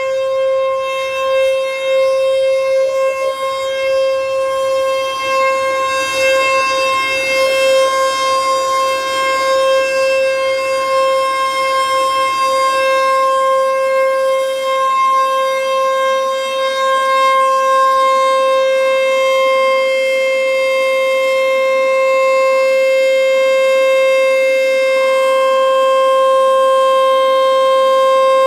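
American Signal T-121 rotating electromechanical warning siren sounding its steady alert signal for a monthly test. It holds one unchanging pitch with strong overtones, and its loudness wavers through the first half before evening out.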